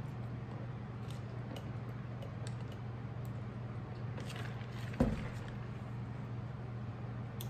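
Faint sips and swallows of soda through a straw from a large paper cup, heard as small scattered clicks, then a single thump about five seconds in as the cup is set down on the table. A steady low hum runs underneath.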